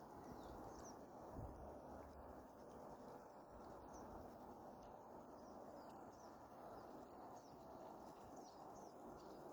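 Near silence: faint outdoor background with scattered faint, high, short bird chirps.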